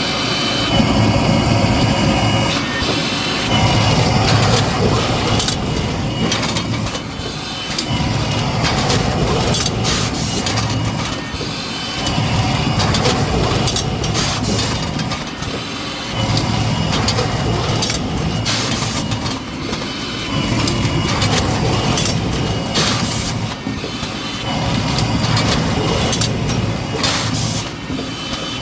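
Mushroom substrate bagging machine with automatic plastic-bag feed running through repeated cycles, a low mechanical rumble swelling and easing about every four seconds with clattering clicks and knocks.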